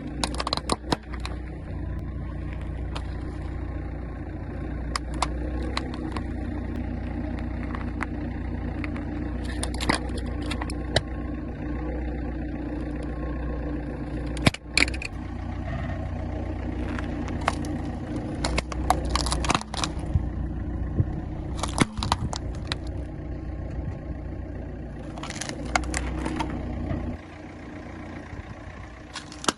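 A car's engine running steadily as it rolls slowly over things, with sharp cracks and crunches breaking in again and again, the loudest a single sharp crack about halfway through. The engine sound drops back near the end.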